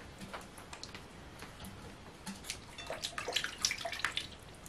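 Silicone spatula stirring lukewarm water with yeast and sugar in a glass bowl: liquid sloshing with small splashes and taps, quicker and louder in the last couple of seconds.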